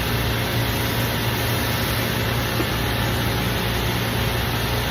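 A machine running with a steady low hum and hiss, unchanging throughout.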